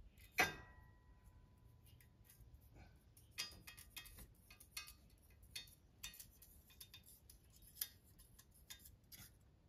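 Faint metallic clicks and light taps of a steel feeler gauge and straight edge against the engine block deck while it is checked for warping. A sharp clink about half a second in rings briefly, then scattered ticks follow every second or so.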